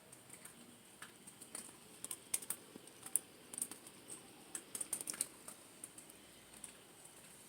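Irregular light clicks and taps of small hard parts or tools being handled, coming in quick clusters in the middle.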